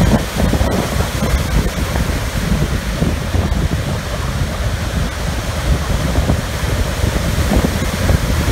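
Waves breaking and washing over shoreline rocks in high wind, with wind buffeting the microphone in a steady low rumble.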